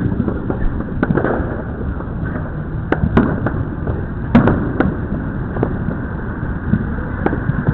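Neighbourhood fireworks and firecrackers going off all around: irregular sharp pops and bangs over a continuous low rumble of more distant explosions. The loudest bangs come about three seconds in and again a second and a half later.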